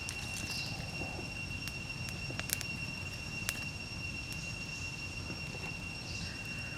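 A small wood fire crackling, with a few sharp pops about two to three and a half seconds in, under a steady high-pitched whine and a low, even rushing noise.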